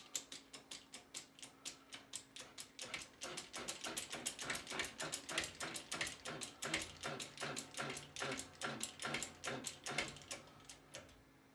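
Harbor Freight hydraulic shop press being pumped by hand: fast, even clicking of the bottle-jack pump, about four strokes a second, as the ram drives a socket down to press a bearing onto a hub. The clicking stops about a second before the end.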